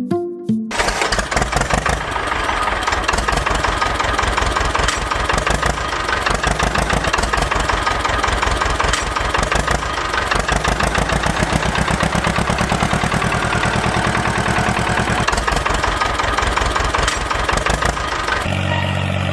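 Small engine of a homemade mini tractor starting and running with a fast, even chugging. Background music cuts off just after it begins, and near the end the running turns into a steadier hum.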